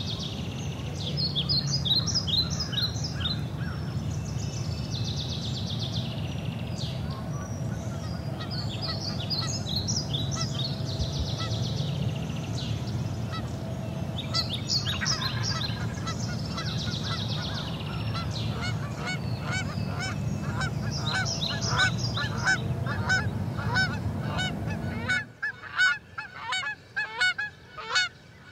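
Wild birds calling: small birds chirping and singing in clusters, joined from about halfway by a quick, steady series of lower calls from a larger bird. A low steady rumble underneath drops out suddenly near the end.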